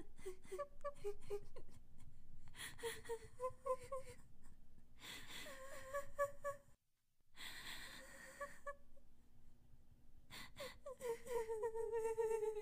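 An eerie, breathy wavering voice moaning in short rising-and-falling notes. It breaks off briefly midway and ends in a long falling wail near the end.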